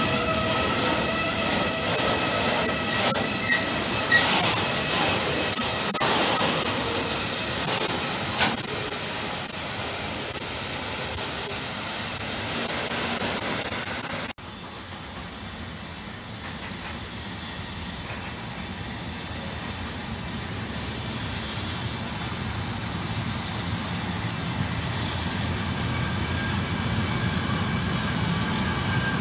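Intermodal freight train's container wagons rolling past on the rails, with several steady high-pitched wheel squeals and short chirps over the rumble of the wheels. About halfway through the sound cuts suddenly to a quieter, duller rumble of the wagons rolling on, which slowly grows louder.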